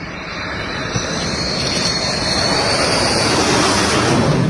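Fighter jet on a low landing approach, its jet engines running with a rushing roar and a high whine that grow steadily louder as it comes close, loudest near the end.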